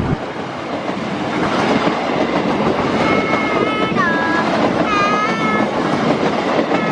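Passenger train passing close by with a steady rumble and rush, its locomotive horn sounding from about three seconds in: a multi-tone blast whose pitch drops sharply as the train goes by, a second blast a second later, and another near the end.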